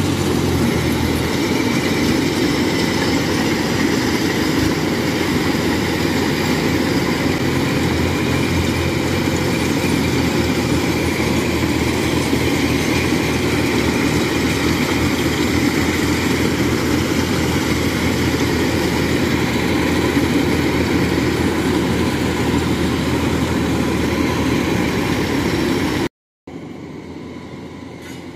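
Kubota rice combine harvester running under load as it cuts rice, a loud steady mix of engine and machinery noise. Near the end the sound cuts off abruptly, then returns quieter with the machine farther away.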